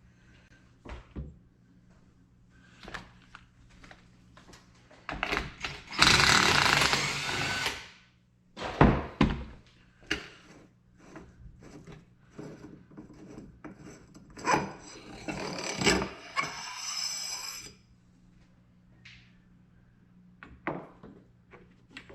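Hand tools and metal fork parts clicking and knocking while a motorcycle's front forks are taken apart, with a loud noisy burst of about two seconds about six seconds in and a longer noisy stretch around fifteen seconds.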